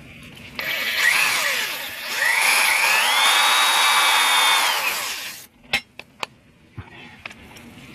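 DeWalt drill with a small bit, at medium speed, boring into a broken exhaust manifold stud on an engine's cylinder head. It starts about half a second in with a short run, then a rising whine that holds steady and winds down at about five and a half seconds. A few sharp clicks follow.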